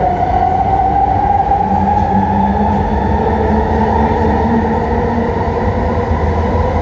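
SkyTrain Mark II train running along the guideway, heard from inside the car: a steady rumble of wheels on rail with a whine from its linear induction motors that drifts slightly lower in pitch toward the end.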